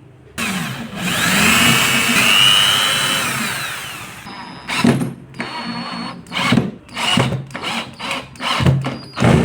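A power tool's electric motor starts suddenly and whirs with a rising, then steady whine for about three seconds before winding down. It is followed by a string of short bursts, roughly two a second, as the tool is switched on and off.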